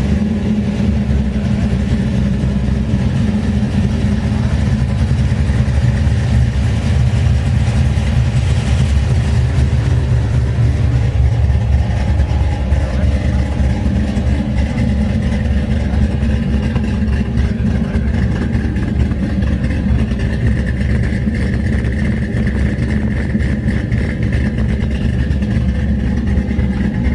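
GMC pickup truck's engine idling steadily, a deep rumble with a quick even pulse.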